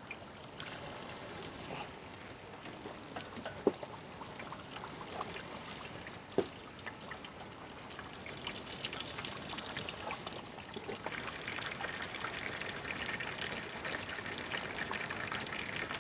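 Whole masala-coated chickens deep-frying in hot oil in a large open pot: the oil bubbles and crackles, growing denser and louder from about eleven seconds in. Two sharp knocks, about four and six seconds in, stand out.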